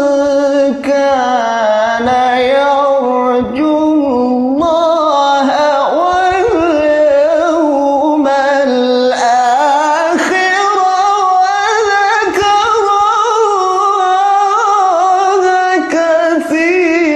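A man's voice reciting the Qur'an in the melodic, ornamented tilawah style of a qari. He holds long notes whose pitch wavers and slides between tones, pausing only briefly for breath.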